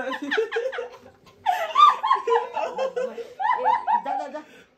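People laughing, with a few words mixed in, in two spells broken by a short pause about a second in.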